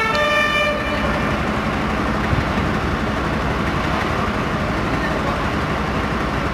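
The last notes of an emergency vehicle's two-tone siren die away in the first second, leaving the steady rumble and hiss of vehicle engines and traffic on a wet street.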